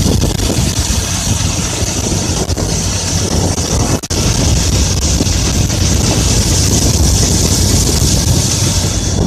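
Combine harvester running steadily with a heavy engine rumble and a wide mechanical hiss, dipping for an instant about four seconds in.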